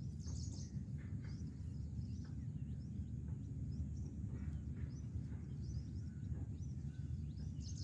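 Open-air ambience: a steady low rumble with scattered short, faint bird chirps, one small cluster about half a second in and another near the end.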